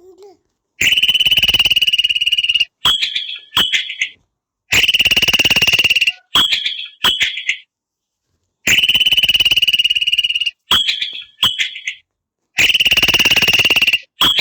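A frog-call ringtone playing on a loop, repeating about every four seconds. Each round is one long rapid trill followed by two short trilled chirps.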